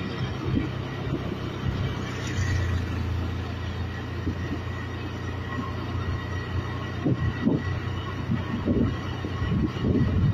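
A vehicle's engine and road noise heard from inside it as it drives slowly: a steady low drone with a hiss, and a few short low rumbles in the second half.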